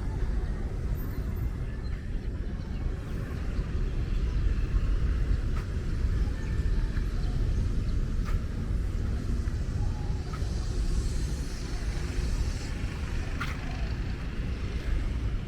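Wind buffeting the microphone outdoors, a steady low rumble with no clear events over it.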